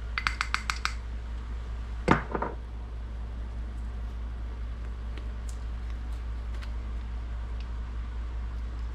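Plastic measuring spoons on a ring clicking together in a quick run of about ten clicks, then a single knock about two seconds in and a few faint ticks, over a steady low hum.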